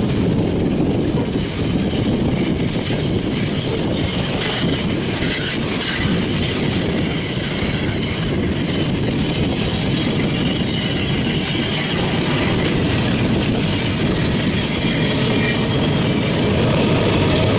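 Loaded covered hopper cars of a long potash freight train rolling past: a steady rumble of steel wheels on rail with thin wheel squeal now and then. Near the end the deep drone of the approaching mid-train GE AC4400CW locomotive comes in.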